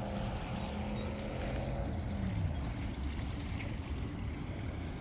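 An engine passing by, its pitch falling about two seconds in, over a steady low rumble.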